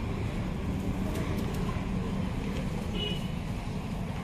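Steady low rumble of busy street background noise, with no one speaking.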